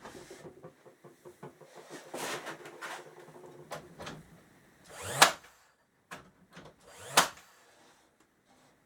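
Wood pieces being handled and shifted for a few seconds, then a pneumatic nail gun firing twice, about two seconds apart.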